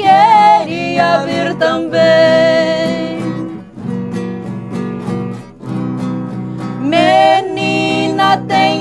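Sertanejo music: voices singing a phrase with a long held note, over strummed acoustic guitar.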